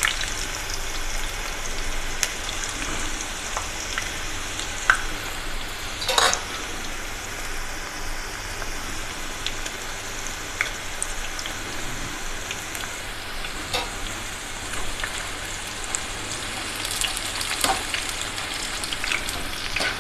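Thin raw banana slices deep-frying in hot oil: a steady sizzle dotted with small crackles and a few louder pops.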